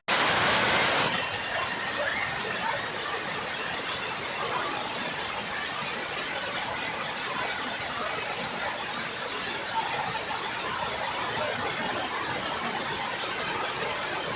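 Rain falling steadily, with a brighter, louder hiss in the first second.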